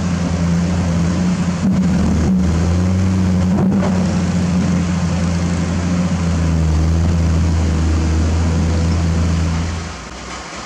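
Diesel dump truck engine running steadily at raised speed to drive the hydraulic hoist as the tipper bed lifts. The sound drops off sharply about ten seconds in.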